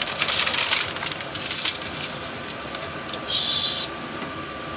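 Dry crackling and rustling as dried aosa seaweed is shaken into a pot of miso soup, dying away about two seconds in. A short steady hiss follows about three seconds in.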